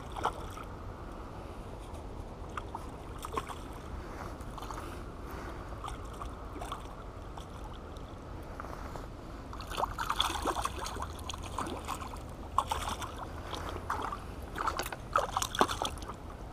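A hooked trout splashing in shallow water as it is reeled in to a rocky bank. A few scattered splashes come early, then a quick run of louder, sharp splashes over the last six seconds as it flops in the shallows.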